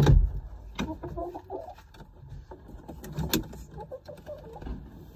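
A loud knock at the start and a few sharp clicks, with soft low clucking from hens settled on their roost in between.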